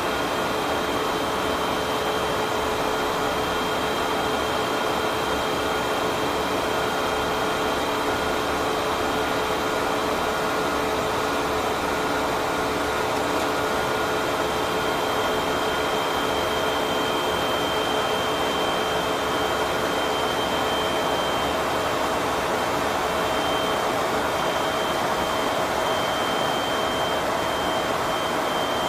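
Steady in-flight cockpit noise of a KC-135 Stratotanker: an even rush of air with a few steady whining tones over it.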